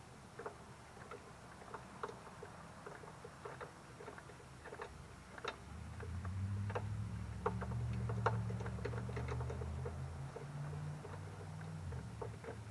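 Scattered light clicks and taps of a spark plug being fitted and threaded into a small push-mower engine, going on stubbornly. A low steady hum comes in about six seconds in and fades near the end.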